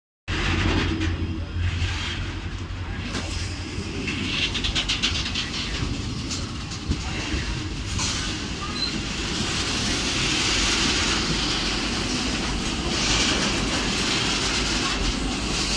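Railway goods wagons, open wagon and petroleum tank wagons, rolling past at close range: a steady rumble and hiss of steel wheels on rail, with a quick rattle of clicks over rail joints about four seconds in and a single sharp knock a few seconds later.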